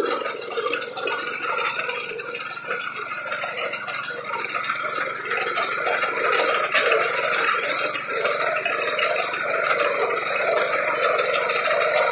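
Walk-behind reaper running steadily: its small engine and reciprocating cutter bar clattering as it mows through tall grass.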